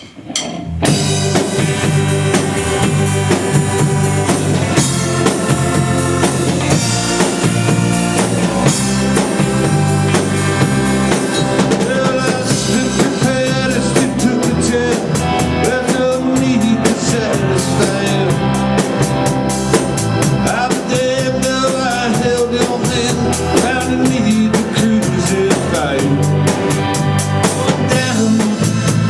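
A live band playing a song with a full drum kit keeping the beat, kicking in about a second in.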